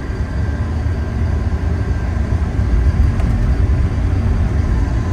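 Steady low rumble inside the cabin of a 1983 Mercedes-Benz 300CD Turbo, its 3.0-litre turbodiesel inline-five running.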